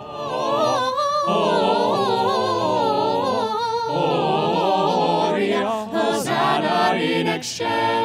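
Background music: a choir singing a cappella, several voices holding long notes.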